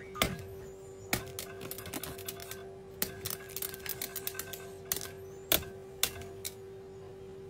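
A dog's claws tapping and clicking on a tablet's glass screen as it paws at a game, a dozen or so irregular sharp taps. A steady tone hums underneath.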